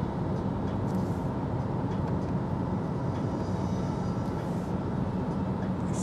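Steady road and wind noise inside the cabin of a Volkswagen ID.3 electric car cruising at motorway speed, a low, even rumble with no engine note.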